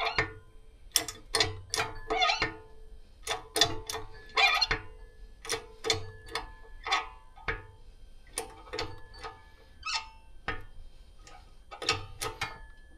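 Irregular metallic clinks with a brief ring, in clusters of a few a second, from a shop press being worked to form the head of a rivet on an AKM rear trunnion.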